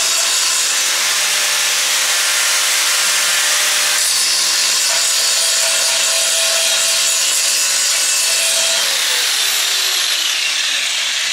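Angle grinder grinding the steel of a gas cylinder at a joint, cleaning it bright for welding: a continuous loud whine with harsh grinding noise. About nine seconds in, its pitch starts to drop.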